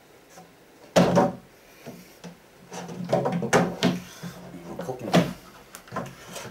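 Panels of a flat-pack wooden pet cabinet knocking and scraping as it is handled: one sharp knock about a second in, then a run of smaller knocks and scrapes.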